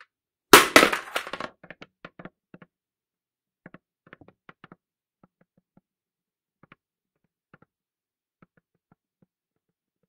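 A construction safety helmet (hard hat) drops onto the ground, with one loud impact about half a second in and a quick run of bounces. Small clattering taps follow and die away over several seconds as the helmet settles.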